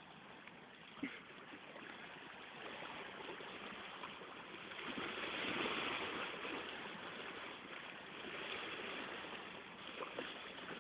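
Steady rush of sea water around a fishing boat, swelling for a couple of seconds about halfway through, with a small knock about a second in.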